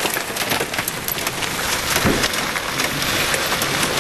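Giant hailstones and driving rain pounding a truck's body and glass, heard from inside the cab: a dense, steady rattle of many sharp impacts, with one heavier strike about two seconds in.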